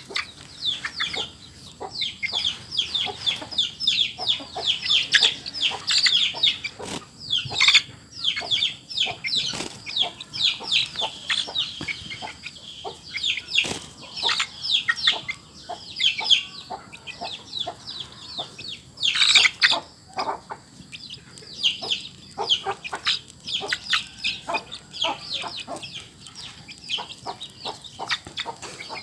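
Young free-range village chicken peeping in a rapid run of short, high, downward-sliding calls while being held and squeezed, with a few louder cries in between.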